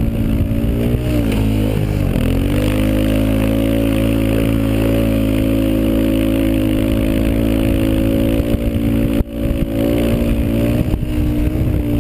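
Snowmobile engine running at a steady cruising speed while towing, with two quick throttle dips early on and a brief drop near the end.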